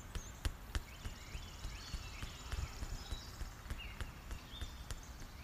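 Soft, irregular taps of two hands clapped together, the webs between thumb and index finger crossed and struck against each other as acupressure self-massage. Faint bird chirps and a thin insect trill sound behind them.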